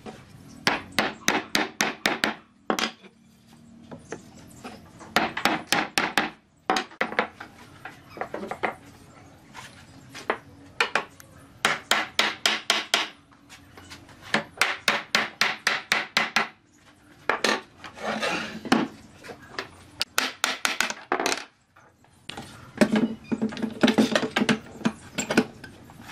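Hammer knocking wooden joints of a pine table frame together: runs of quick, sharp blows, several a second, broken by short pauses.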